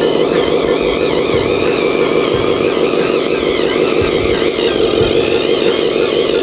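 A steady, loud motor drone with a wavering high whine over it.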